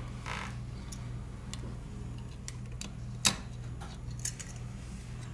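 Small plastic clicks and taps of a spudger prying a phone's mainboard out of its plastic frame, with one sharp snap about three seconds in as the board comes loose, over a steady low hum.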